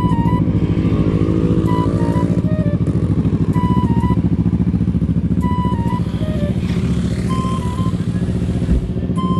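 Motorcycle engines idling, with one revving up about a second in, under background music of short stepped melody notes.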